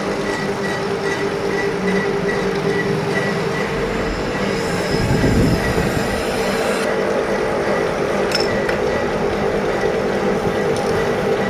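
Lathe running steadily with a hum and a faint tick repeating two or three times a second, swelling briefly to a louder rush about halfway through.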